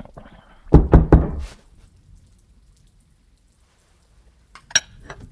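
Three heavy knocks in quick succession about a second in, then a single sharper click near the end.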